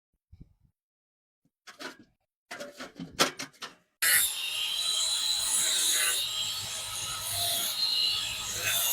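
A few light taps and knocks. Then, about four seconds in, a continuous rasping scrape begins: a hand tool working the aluminium steamer rack during its repair.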